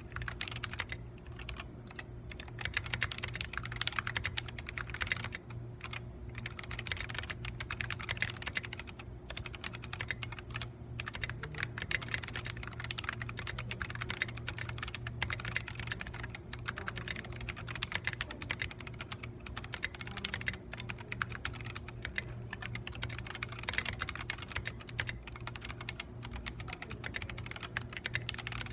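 Mechanical keyboard with Outemu Sky V2.2 switches typing continuously, fast dense key clacks from an undampened aluminum 96-key case with an aluminum plate. A steady low hum runs underneath.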